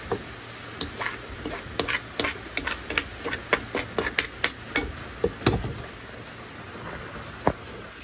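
A spoon clicking and scraping against a frying pan as sweet corn kernels are stirred: a quick, uneven run of clicks for about five seconds, then one more click near the end. The frying hiss of the corn runs underneath.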